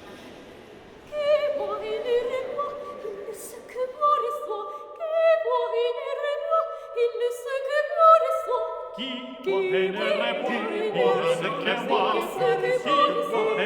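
Unaccompanied voices singing a French drinking song in parts. High voices come in one after another about a second in, and lower voices join at about nine seconds.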